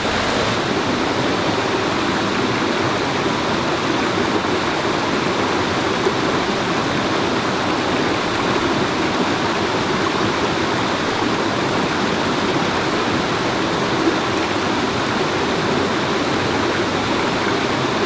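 Waterfall pouring into its pool: a steady rush of falling water.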